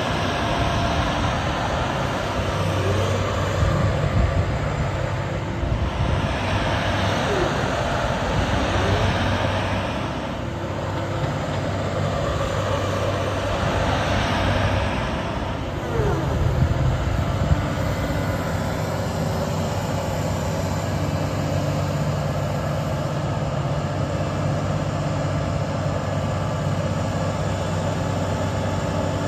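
Doosan DX225LC-3 crawler excavator's diesel engine running steadily under load while the boom and arm are worked and the upper structure swings, with a rushing hydraulic noise that swells and eases and a few short squeaks in the first half.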